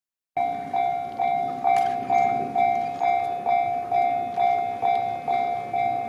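Japanese railway level crossing's electronic warning bell ringing, a single repeated ding about twice a second: the crossing is activated and the barrier is lowering for an approaching train.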